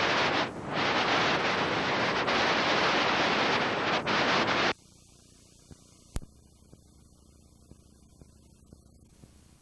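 Loud, steady hiss of videotape static after the recording has ended. About halfway through it cuts off suddenly, leaving a faint background with small ticks and one sharp click.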